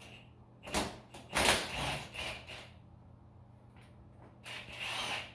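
Clanks and scraping of tools and engine parts being handled, in several bursts, the loudest about a second and a half in.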